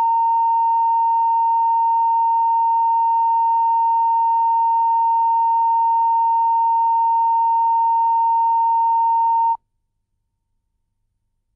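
Steady line-up test tone on a broadcast videotape's countdown-clock leader: one unchanging pitch that cuts off suddenly about nine and a half seconds in.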